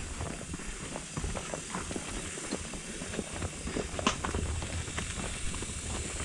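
Footsteps of several hikers on a dry dirt trail, irregular scuffing and crunching steps, over a steady faint high hiss. One sharper click about four seconds in.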